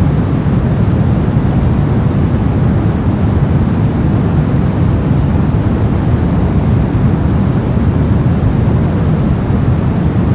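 Brown noise: a steady, unchanging rumbling hiss, heaviest in the low end.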